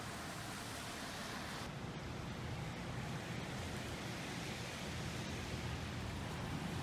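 Steady ambient background noise: an even hiss over a low rumble, with no distinct events. The hiss dulls slightly about two seconds in.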